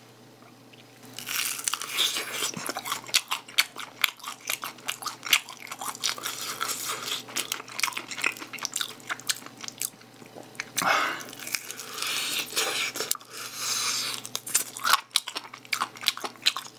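Close-miked crunching and chewing of sauced fried chicken (a chicken drumette). Crisp bites and crackles start about a second in and keep on irregularly, with the mouth working the meat off the bone.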